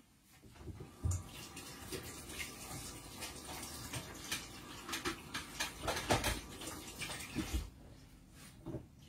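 Water running from a kitchen tap, with a few light knocks of bowls or utensils; the flow stops about a second before the end.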